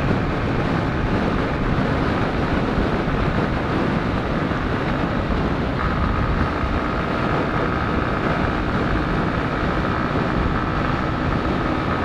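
Wind rushing over the microphone in a strong crosswind, over the steady running of a Yamaha Crosser 150's single-cylinder engine at highway cruising speed. A faint steady high whine joins in about halfway through.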